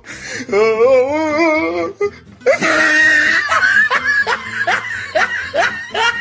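Meme sound effect clips: a wobbling, wavering pitched tone for about a second and a half, then after a short break a run of rapid, repeated laughter over music.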